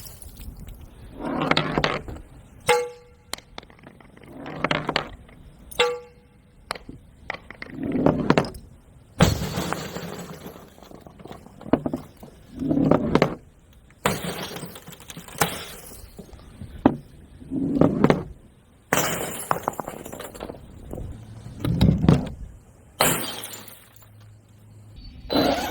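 Balloons popping one after another, a sharp burst every second or two, with a few pops followed by a brief glassy ringing.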